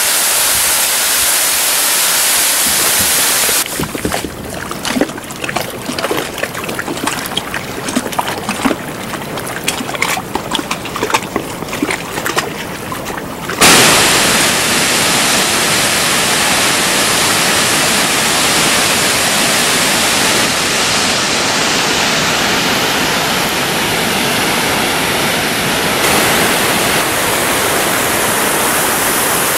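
Steady rush of falling water from a waterfall and a shallow stream running over gravel. A quieter, uneven stretch of splashing sits in the middle, and near the midpoint a loud steady rush starts suddenly.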